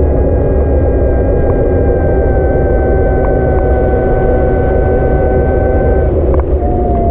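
Wind rush and rolling noise from riding an e-bike, with the electric motor's steady whine slowly dropping in pitch as the bike eases off. The whine cuts out about six seconds in and comes back briefly near the end, falling again.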